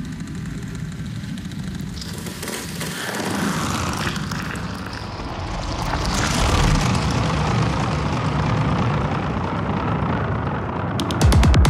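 Intro of an electronic dance track: a deep rumbling drone with swelling whooshes that build in waves, then a fast, steady beat comes in suddenly near the end.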